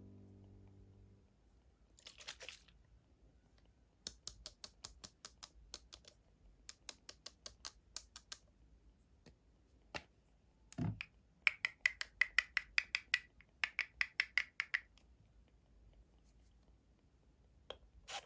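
Runs of quick small clicks and taps, several a second, with a short hiss about two seconds in and a single louder knock near the middle.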